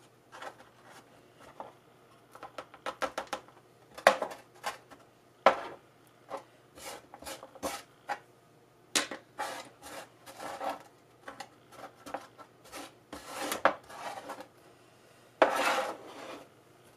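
Irregular light clinks, taps and rustles of small pots and herb cuttings being handled during potting, with a longer rustle near the end.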